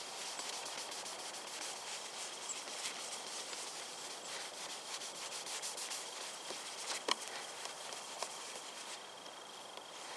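Rapid back-and-forth rubbing by hand on car paintwork, as when working a scratch remover into the paint, with a faint steady high tone beneath it and one sharp click about seven seconds in.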